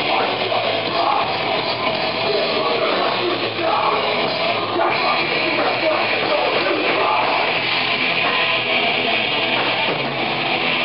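Thrash metal band playing live: distorted electric guitars over a drum kit, loud and unbroken.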